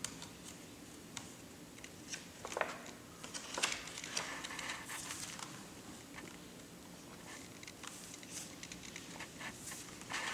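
Faint paper rustling and scattered light taps as a small child's hands move over the pages of a picture book.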